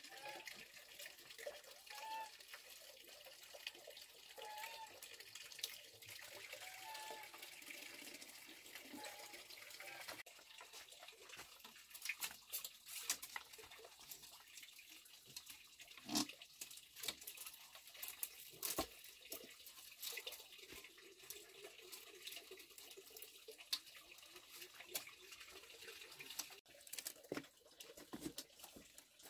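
Light knocks, taps and rustles of bamboo poles and strips being handled and fitted into a shelf frame, scattered and growing busier after about ten seconds, over a faint steady hiss. Faint short chirps come and go in the first ten seconds.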